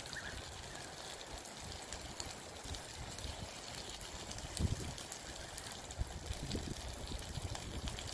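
Octopus and vegetables sizzling on a hot foil-lined barbecue plate: a steady hiss with scattered small crackles, and a few low thumps in the second half.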